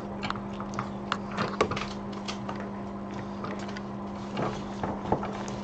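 Scattered faint clicks and light taps of small tools being handled on a repair bench, over a steady low electrical hum.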